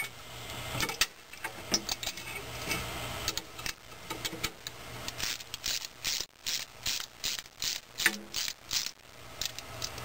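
Ratchet wrench with a 10 mm socket being swung back and forth, its pawl clicking in runs of quick clicks as it tightens the nuts holding an ignition coil to its mounting bracket.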